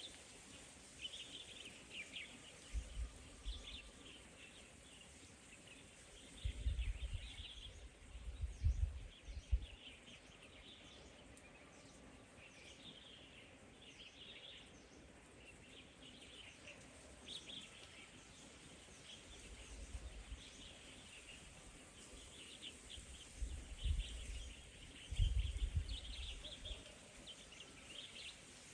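Small birds chirping over and over, with several brief low rumbles, the loudest about seven to nine seconds in and again near the end.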